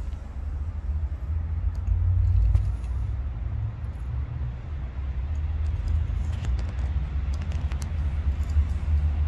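A constant low rumble, with a few faint sharp clicks about two seconds in and again a little past the middle as a leopard tortoise bites and chews red guava and a leaf.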